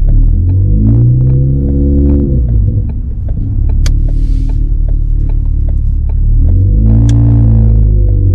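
Ford Focus ST's turbocharged 2.0-litre four-cylinder with a loud straight-piped Roush exhaust, pulling hard: the engine note climbs, drops as it shifts, and climbs again near the end. About halfway through there is a sharp click and a short hiss from the Turbosmart blow-off valve.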